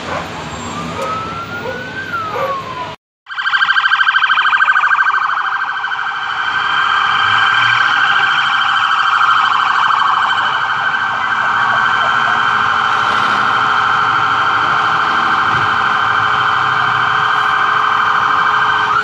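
Police sirens: a wailing siren rising and falling for the first few seconds, then, after a brief dropout about three seconds in, a loud close siren in a fast steady warble.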